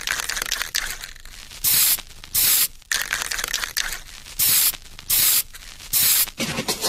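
Sound effects for an animated title: five loud, short bursts of hiss over a steady crackling noise.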